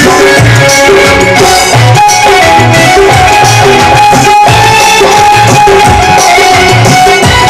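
Instrumental interlude of a devotional bhajan: tabla-style drums keeping a steady beat under a sustained melody on a keyboard-like instrument, with no singing.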